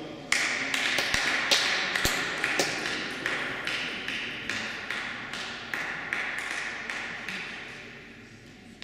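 Scattered applause from a small audience: separate hand claps that start suddenly shortly after the start and slowly fade out.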